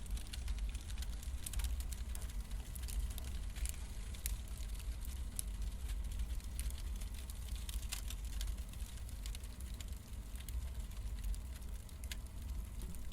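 Firewood burning and crackling: irregular sharp pops and snaps over a steady low rumble.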